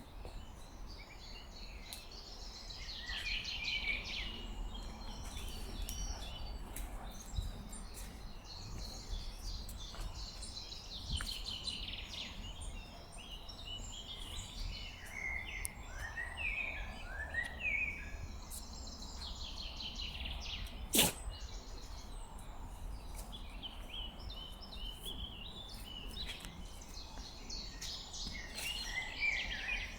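Several songbirds singing in short, repeated phrases over a steady low background hiss, with a single sharp click about two-thirds of the way through.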